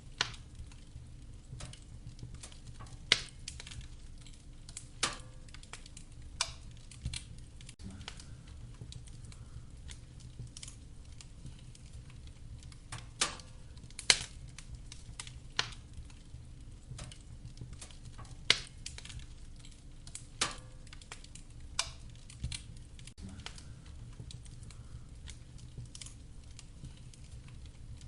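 Wood fire crackling in a fireplace: sharp, irregular pops about every second or two over a low, steady rumble.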